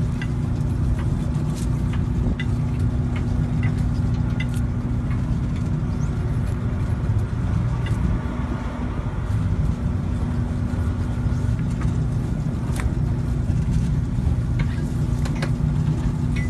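Fishing boat's engine running steadily, a low hum with one constant tone, with scattered small clicks as the fishing net is handled on deck.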